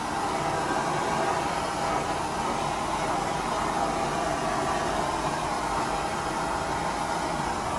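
Handheld blowtorch flame burning with a steady, even rushing noise.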